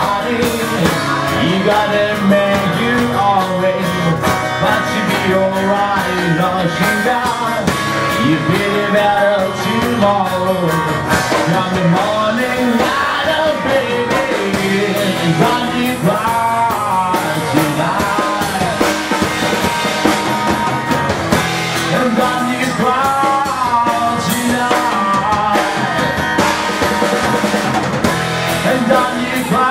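Live rock music: a man singing over a strummed acoustic guitar, backed by a drum kit.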